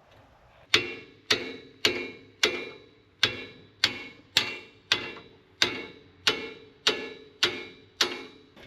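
Thirteen evenly spaced metal-on-metal blows, a little under two a second and starting about a second in, each ringing briefly: a tool being beaten on a wrench to break loose the tractor's rollover-bar bolts, which are still at factory torque.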